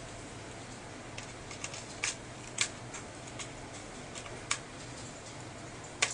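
Plastic case of a 7-inch tablet clicking as its edges are pressed together, a series of separate sharp clicks; the loudest come about two and a half seconds in and just before the end.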